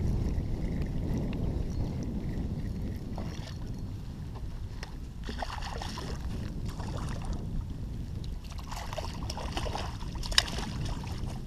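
Wind buffeting the microphone, with a hooked fish splashing and thrashing at the water's surface beside the kayak, in two spells in the middle and latter part, and a single sharp knock near the end.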